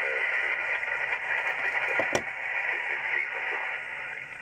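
Static hiss from a Yaesu transceiver receiving 7.128 MHz in lower sideband, with no one transmitting clearly, and one sharp crackle about two seconds in.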